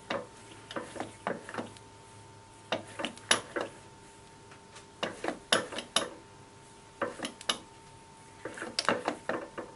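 Light metallic clicks and clinks in short clusters, from the centering dial indicator and metal tooling being handled as the indicator probe is set into the centering hole on the milling machine, over a faint steady hum.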